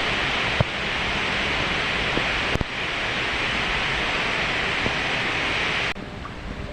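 Water rushing steadily over a small river waterfall, a dense hiss-like rush. It drops abruptly to a quieter, deeper rush near the end, with a couple of brief clicks earlier.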